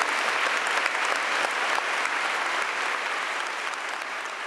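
Large audience applauding steadily, a dense wash of many hands clapping that eases off slightly toward the end.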